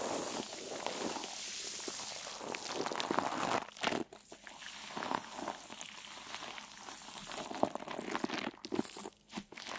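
Irregular crunching and crinkling, many small crackles close together, with a short lull about four seconds in and another near the end.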